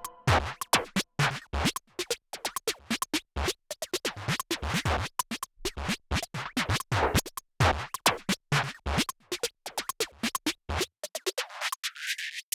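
Electronic dance music in a choppy, stuttering break: short scratch-like bursts several times a second with gaps between them. The bass drops out about eleven seconds in.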